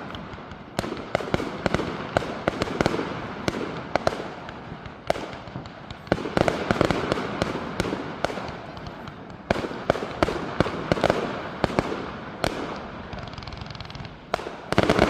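Fireworks going off in quick succession: repeated sharp bangs with dense crackling between them, the bangs coming in clusters with a sharper burst about five seconds in, another about nine and a half seconds in, and a heavy cluster near the end.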